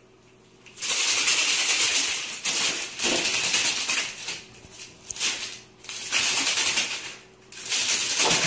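Paper rustling and crinkling in repeated bursts as a cat paws and scratches at a stack of papers on a desk.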